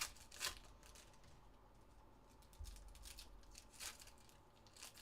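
Faint crinkling and tearing of trading-card pack wrappers being handled and ripped open, a handful of brief rustles.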